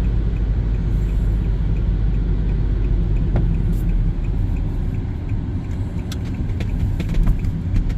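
Car driving along: a steady low engine and road rumble, with a faint, regular ticking over it.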